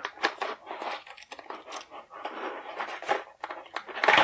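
Wire cutters snipping through rope-like twist ties on a cardboard toy-package backing, with several sharp clicks over cardboard and plastic rustling; the sharpest click comes near the end.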